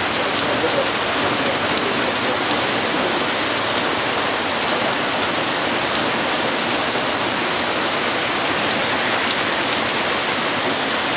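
Steady heavy rain falling, an even hiss that does not change.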